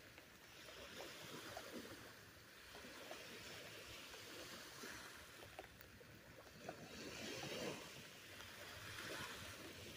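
Faint wash of surf and falling rain, swelling louder twice in the second half, heard through a phone sheltered under a hat.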